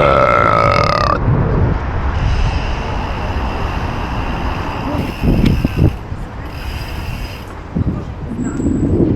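Deliberate, exaggerated belches: a loud low one about five seconds in and another swelling up near the end, over steady street traffic noise. A steady high-pitched tone sounds for about the first second.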